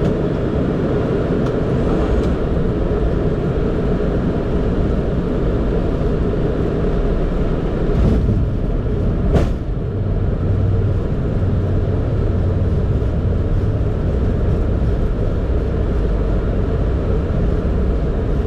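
Boeing 767 in flight on approach: a steady rush of airflow and engine noise. A brief sharp click comes about nine seconds in, and a low hum joins just after it.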